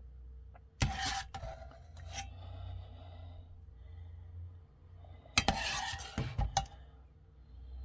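A kitchen utensil scraping and knocking against a pan and baking dish while thick béchamel sauce is spread over the filling. There are two bursts of sharp clinks and scrapes, about a second in and again around five and a half seconds in, with softer scraping between them.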